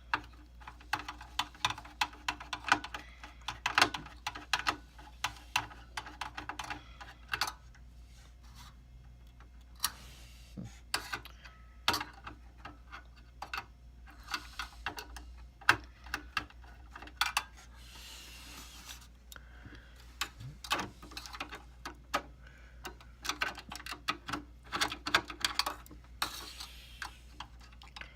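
Irregular small clicks, taps and rattles of a screwdriver and metal parts as a server's CPU heatsink is unfastened and lifted off, with a few short scraping rustles.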